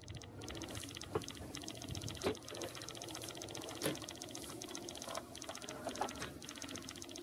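A rapid, even mechanical ticking like a small machine running, with a few separate knocks.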